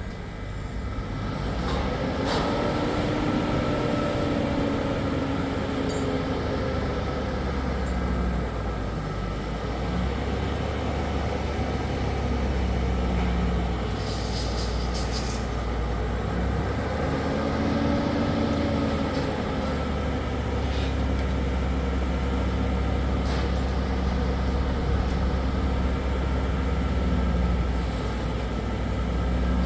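A large engine running steadily with a low rumble, its pitch rising and falling twice. There is a brief hiss about halfway through.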